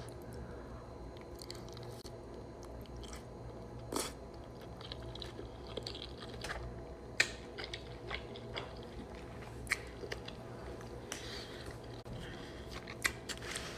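A person chewing and biting food close to the microphone, with sharp clicks and crunches scattered throughout, the loudest about seven seconds in, over a low steady hum.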